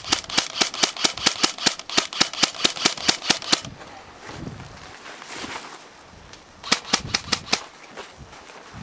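Airsoft M4-style rifle firing a rapid string of shots, about seven a second, that stops about three and a half seconds in. A second short string of about eight shots follows about seven seconds in.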